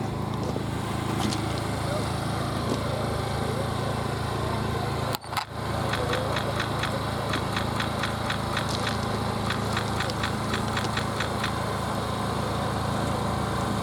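An engine idling steadily, with a brief dropout about five seconds in. A run of quick, evenly spaced clicks, about four a second, sounds over the hum for several seconds after.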